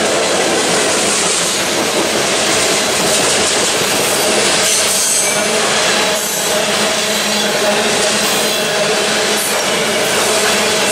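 Steel wheels of a freight train's covered hopper cars running past on the rails close by: a loud, steady rush of wheel and rail noise with a faint, steady ringing tone running through it.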